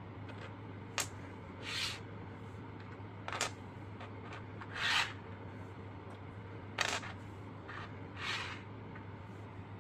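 Small plastic miniature boxes being set down and slid into place on a hard tabletop by gloved hands. There are a few light clicks and short scraping rubs, one every second or two, and the loudest scrape comes about five seconds in. A steady low hum runs underneath.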